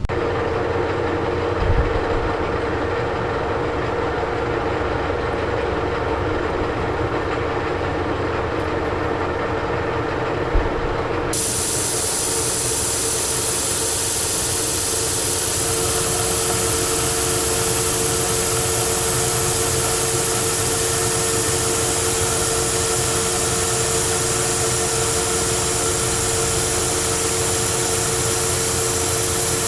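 Old Monarch engine lathe running steadily, turning a hot-rolled 1018 steel bar, with a steady hum. About 11 seconds in the sound abruptly gets louder and a steady hiss joins it.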